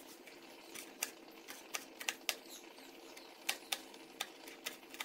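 Knife chopping green chillies on a plastic cutting board: irregular sharp clicks of the blade striking the board, a few per second.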